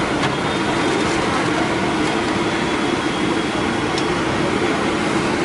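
Masala wadas deep-frying in a large kadai of hot oil: a steady sizzle over a constant low rushing noise, with a light metal click about four seconds in.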